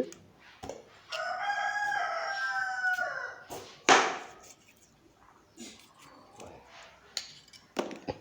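A rooster crowing once, one long call of about two seconds. Shortly after comes a sharp knock, the loudest sound, then a few light clicks.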